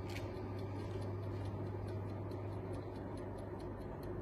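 Electric oven running while baking, a steady low hum with a fast, light, even ticking at about four ticks a second.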